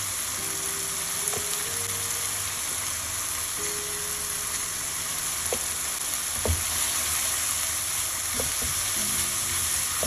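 Ground chili paste sizzling as it fries in oil in a nonstick pan, stirred and spread with a silicone spatula, with a few light knocks, the loudest a little past the middle.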